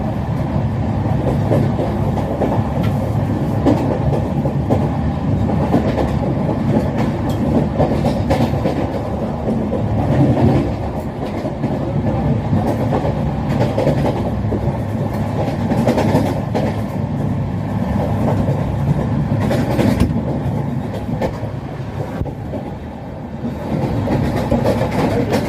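Indian Railways train running along the track: a steady rumble of wheels on rail, with occasional sharp clacks as the wheels pass over rail joints.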